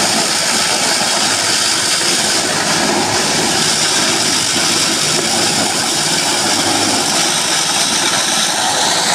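Corn grinding machine running steadily, a loud, dense and unbroken mechanical noise with a faint steady hum in it.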